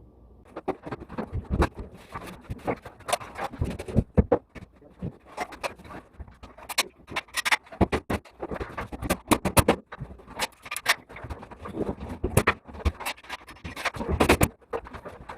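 Irregular knocks, taps and clatter from interior construction work, with a few much sharper, louder hits among softer handling noises.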